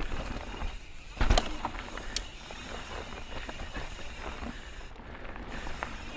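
Mountain bike rolling along a dirt jump trail: tyre noise and bike rattle, with one heavy thud about a second in.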